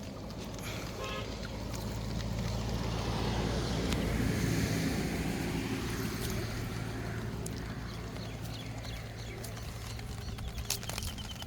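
A motor running with a steady low hum, under a rush of noise that swells to its loudest about four seconds in and then dies away.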